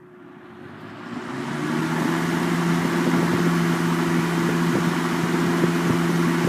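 1987 Kmart K-223 box fan switched on from cold, its motor and blades spinning up over about two seconds to a steady hum with a rush of moving air.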